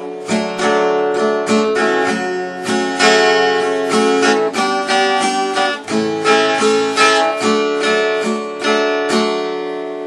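Instrumental ending of a country-gospel song: acoustic guitar strumming chords in a steady rhythm, about three strokes a second, the last chord ringing out near the end.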